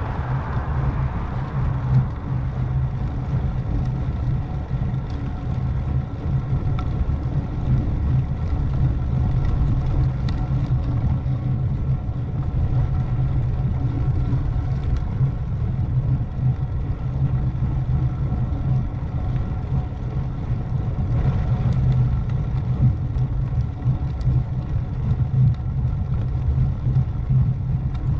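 Wind buffeting the microphone and road rumble from a moving road bicycle: a steady, dense low rumble with faint steady tones above it.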